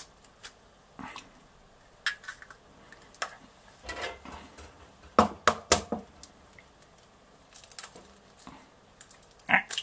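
Kitchen clatter of dishes and utensils: scattered sharp knocks and clicks, the loudest two close together about five seconds in.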